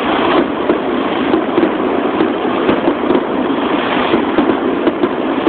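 Aerial fireworks shells bursting in quick succession at close range: a dense, continuous crackle with many sharp cracks and pops over it.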